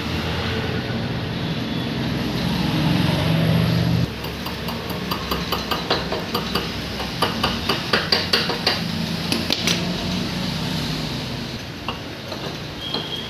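Metal tools and engine parts tapping and clinking in an irregular run of light sharp knocks, several a second, from about four seconds in to about ten. Before that, a steady low hum that cuts off suddenly about four seconds in.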